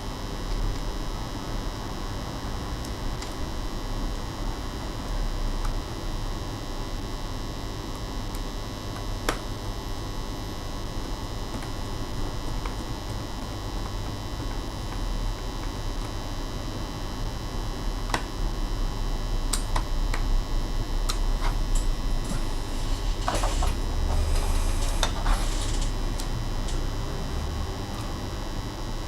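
Steady electrical hum under scattered small clicks, with a few seconds of scraping and rattling about three quarters of the way through: small parts and case panels being handled during laptop repair work.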